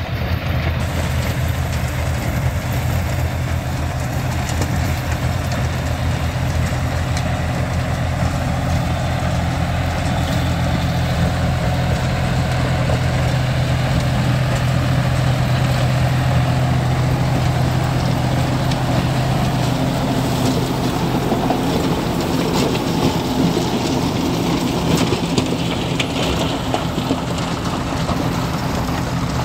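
John Deere 5103 S tractor's three-cylinder diesel engine running steadily under load as it drives a rotavator through dry cotton stalks. The engine hum is strongest about halfway through as the tractor passes close, then eases as it moves off.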